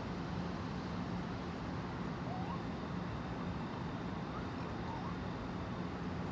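Steady outdoor urban background hum with a constant low drone, and a few faint, short rising chirps about halfway through.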